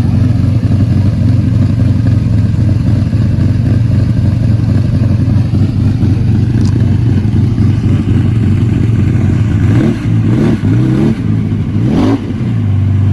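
Lamborghini Countach V12 idling steadily, then revved twice, with two quick throttle blips that rise and fall in pitch near the end.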